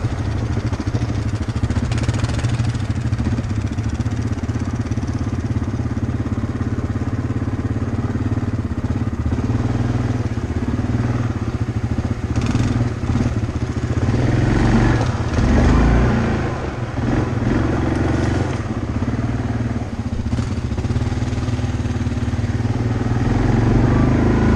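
ATV engine running steadily while being driven, with uneven low rumbling over the second half.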